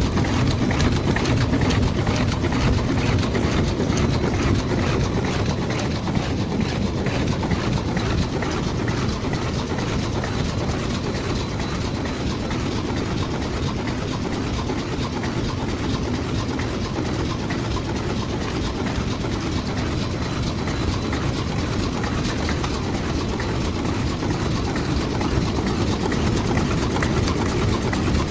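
Automatic eye drop bottle cartoning machine running steadily: an even mechanical hum with a dense, rapid clicking of its moving parts.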